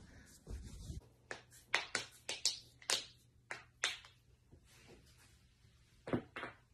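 Joints cracking during a chiropractic adjustment: a dull thump about half a second in, then a quick run of about ten sharp pops and cracks, and two more close together near the end.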